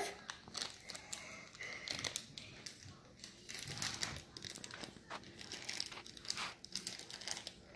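Thin plastic blind bag crinkling as it is handled and opened, a run of irregular crackles and rustles.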